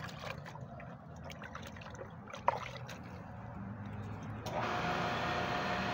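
Electric water pump motor switched on about four and a half seconds in and running steadily with a whine, but not drawing water: the pump has not held its prime. Before it starts, water dribbles and there is one sharp click.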